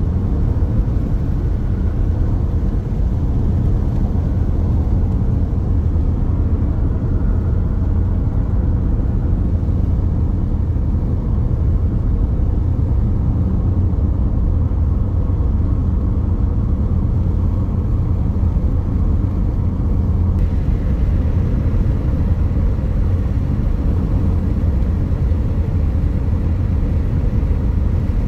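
Car driving at a steady speed: a continuous low rumble of tyre, road and engine noise.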